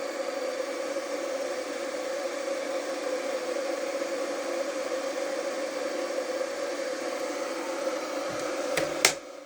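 Tesco 3 kW electric kettle heating water: a steady hiss and whir with an even tone. A single sharp click comes near the end, after which it is briefly quieter.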